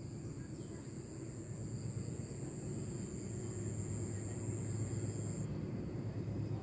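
An insect, such as a cricket or cicada, calling on one steady high-pitched note that cuts off suddenly about five seconds in, over a low outdoor rumble that grows a little louder toward the end.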